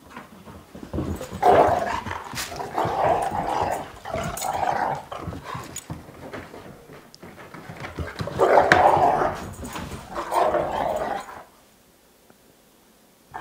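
A dog vocalizing in two stretches of rough noises, each a few seconds long with a short lull between them. The sound stops about a second before the end.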